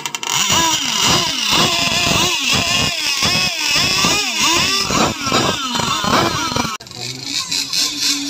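Small two-stroke engines of RC tunnel-catamaran powerboats revved in quick blips on their stands, pitch rising and falling over and over. Near the end the sound cuts abruptly to a quieter, steadier engine note.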